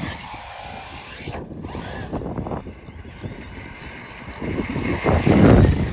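Wind buffeting the microphone, a rough rumble that swells loudest near the end, with a faint high whine drifting up and down underneath.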